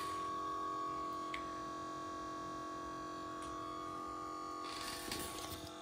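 Small electric pump motor running with a steady hum while it fills the tank. A brief rustle of handling comes near the end, and then the hum drops lower.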